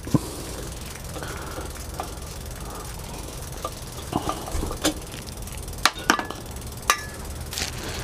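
Scattered sharp metallic clicks and taps of a hand tool working at a bicycle's crank and chainring, removing the screws of a broken chain guard, over a steady low hum.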